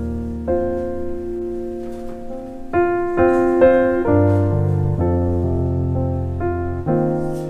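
Gentle piano music: sustained chords with melody notes changing every half second to a second or so.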